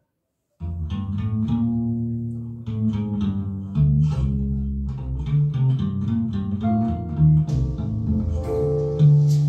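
Instrumental music with bass guitar and plucked guitar, played through floor-standing hi-fi speakers and picked up in the room. It starts abruptly about half a second in, and a high, hissy shimmer joins the mix about seven and a half seconds in.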